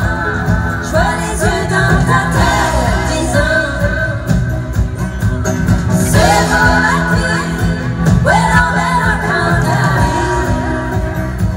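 Music with a singing voice over steady bass notes.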